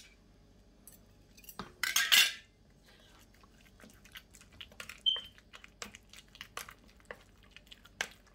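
Wooden spoon stirring a thick chicken-and-mayonnaise mixture in a stainless steel bowl, with scattered knocks and clinks against the metal. A louder scrape comes about two seconds in, and a short ring about five seconds in.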